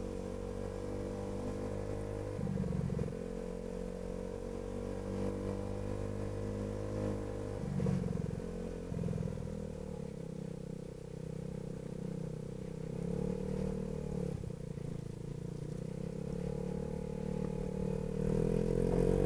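2006 Baotian BT50QT-9D scooter's single-cylinder 139QMB four-stroke engine, with a DB Killer exhaust, running at low road speed. Its note wavers slightly, with a few brief blips of throttle, and rises and gets louder near the end.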